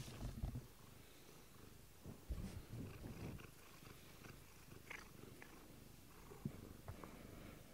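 Domestic cat purring faintly at close range, louder in two short stretches, at the start and again about two to three seconds in.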